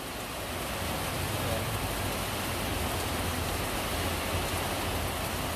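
Steady rain on the roof of a minibus, heard from inside the cabin: a constant hiss with a low hum underneath.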